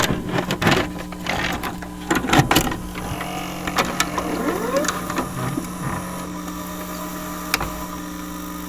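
A steady electrical hum with irregular clicks and crackles, thickest in the first few seconds, then thinning out.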